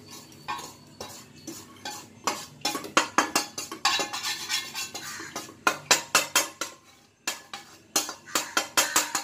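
Metal clinking and scraping as a steel kadai is emptied of roasted wheat flour into a steel bowl. Irregular sharp knocks, with quick runs of several knocks in a row.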